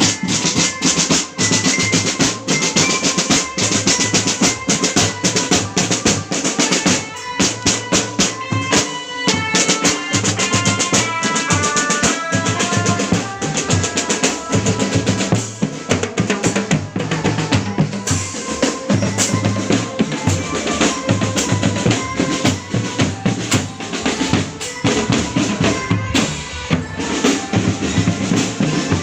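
Marching drum band playing: snare drums with rolls and steady bass drum beats, under a pitched melody line, with a quick run of stepping notes about eight to twelve seconds in.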